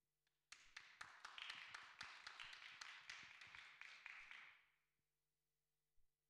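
Faint audience applause: a short round of many hands clapping that starts about half a second in and dies away after about four seconds.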